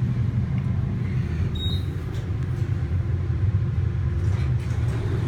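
A steady low rumble, with one brief high beep about one and a half seconds in.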